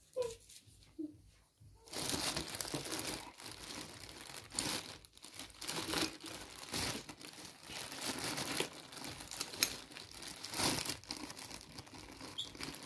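Thin plastic bag crinkling and rustling as hands dig through the small parts inside it, starting about two seconds in and going on with many small crackles.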